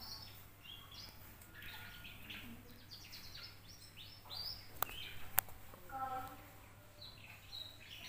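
Two-month-old canary twittering: a rapid, uneven run of short high chirps, the young bird's early warbling (ngriwik). Two sharp clicks come about five seconds in.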